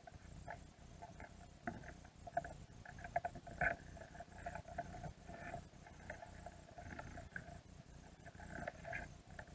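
Underwater recording of Dungeness crabs working at a plastic-mesh bait cage: irregular clicking and scraping of claws and legs on the cage, over a low rumble, with a louder cluster of clicks about three and a half seconds in.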